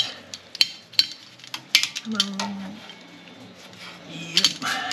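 Metal hand tools clinking and tapping against a refrigeration compressor and its copper tubing: a scattered series of sharp clicks and clinks.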